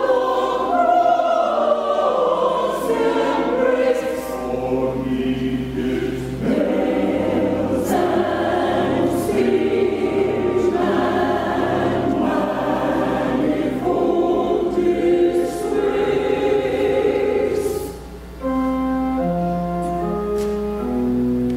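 Church sanctuary choir singing a sacred anthem in parts over instrumental accompaniment. About eighteen seconds in the voices break off and the accompaniment plays on alone in single stepped notes.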